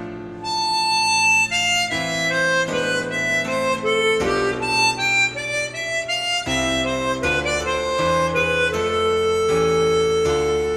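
Harmonica playing a slow, legato classical melody over piano accompaniment. It enters about half a second in on a long held note, then moves through a series of sustained notes.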